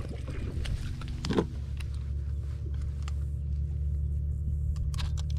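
Steady low mechanical hum, like a small motor running, with a few sharp clicks and knocks of handling about a second in and near the end.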